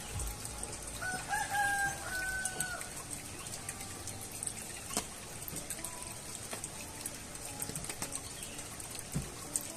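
A rooster crows once, about a second in, a flat call lasting nearly two seconds with a short break near its end. A faint steady high hiss runs underneath, with a few light knocks.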